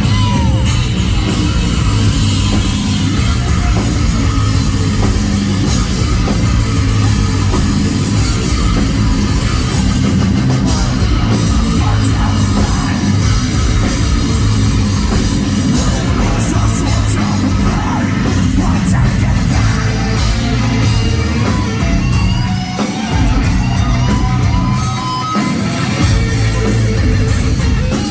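Heavy metal band playing live: distorted guitars, drum kit and sung vocals, loud and continuous. The bass and kick drop out briefly twice near the end.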